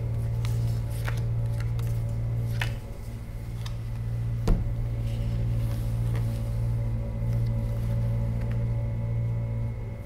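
Low droning music bed under scattered sharp snaps of playing cards being handled and dealt, with one louder thump about four and a half seconds in.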